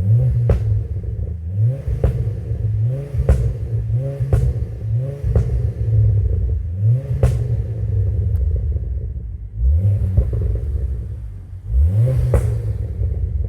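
Ford Focus ST225's turbocharged five-cylinder engine revved in about eight short blips. Each one rises quickly in pitch and is followed by a sharp pop or bang from the exhaust as the revs drop.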